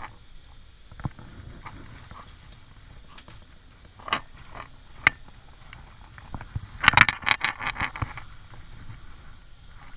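A towel rubbing and squeezing a wet standard poodle puppy's curly coat, with scattered knocks. About seven seconds in comes a loud burst of rapid clattering strokes lasting about a second.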